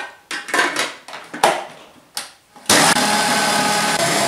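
A few clicks and knocks as the stand mixer is set up. Then, about two and a half seconds in, the Prosper 900 W stand mixer's motor starts suddenly and runs steadily and loudly, its whisk beating egg yolks and sugar.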